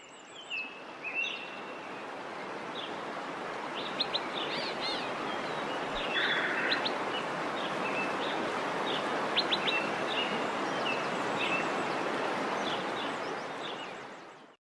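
Steady rush of a large waterfall, with birds chirping now and then over it; the sound fades out near the end.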